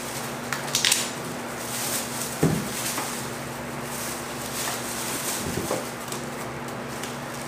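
Grill parts and packaging being handled: scattered light clicks and rustling, with a dull thump about two and a half seconds in and another near six seconds, over a steady faint hum.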